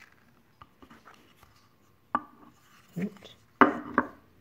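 Purpleheart wooden dice boxes being handled on a cloth-covered table: a few light taps, then a sharp wooden knock about two seconds in and two louder clacks near the end as a box is picked up and its sliding wooden lid is pushed open.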